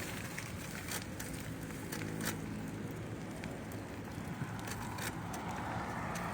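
Gear-shifted bicycle drivetrain running with a low rumble and irregular sharp clicks. This is the noise that the owner says comes only when the gears are in second.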